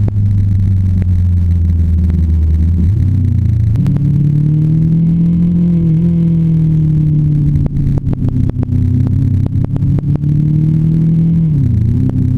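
Motorcycle engine running under way, heard from a camera mounted on the bike. The engine note climbs about three to four seconds in, slowly eases down, and drops sharply near the end.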